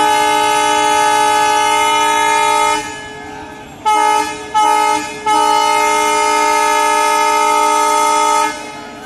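Diesel locomotive's air horn sounding: a long blast of nearly three seconds, two short toots, then another long blast of about three seconds.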